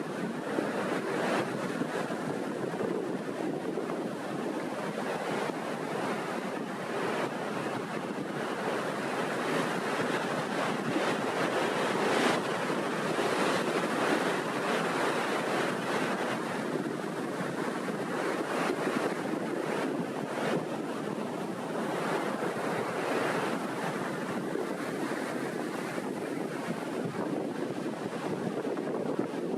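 Small waves breaking and rolling onto the shore in a steady wash of surf, rising and falling gently, with wind buffeting the microphone.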